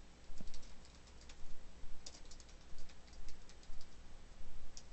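Typing on a computer keyboard: short runs of quick keystrokes with brief pauses between them, as a name is typed into a text field.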